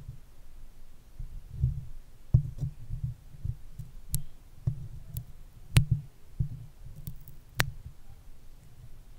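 Stickers pressed onto and peeled off a microphone, close up: a run of dull, low thumps from fingers handling the mic, with several sharp clicks in the second half.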